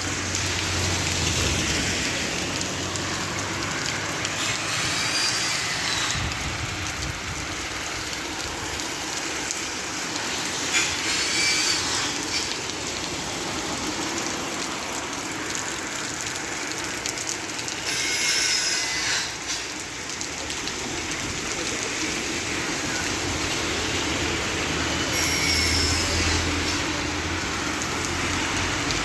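Heavy rain falling steadily, a dense even hiss. A brief high squeak that bends in pitch recurs roughly every six or seven seconds.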